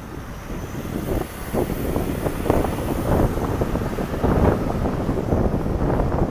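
Wind buffeting the microphone in irregular gusts over a low rumble of road traffic.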